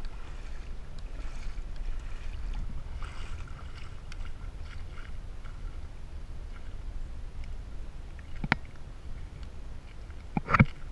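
Wind buffeting the camera's microphone with a steady low rumble. There are two sharp knocks, one about eight and a half seconds in and a louder one near the end.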